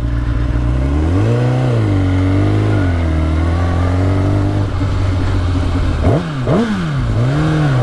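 Kawasaki sport bike's engine pulling at low, steady revs while ridden slowly. The revs rise and fall once after about a second, then two quick, sharp throttle blips about six seconds in, with a smaller rise near the end.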